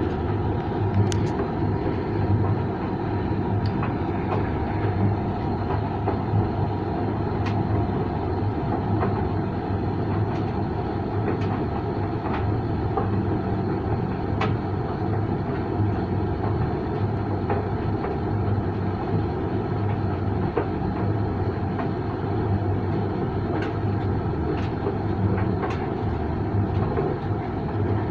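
Creda 37762G tumble dryer running: a steady motor hum and drum rumble, with occasional light clicks.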